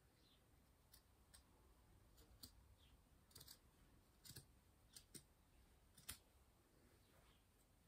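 Scissors snipping through thick cotton mop-head yarn: a series of faint, sharp snips at irregular intervals, the loudest about six seconds in.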